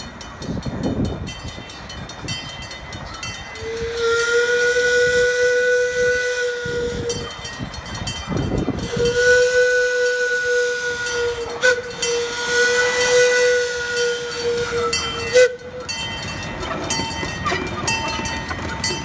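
Miniature live-steam locomotive's steam whistle sounding for a grade crossing: two long, steady blasts with steam hiss, the second drawn out over about six seconds with a brief break partway through. The train's running rumble continues underneath.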